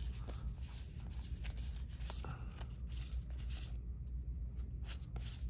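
Trading cards being flipped through and slid against one another by hand: soft scraping with scattered light clicks of card stock, over a steady low hum.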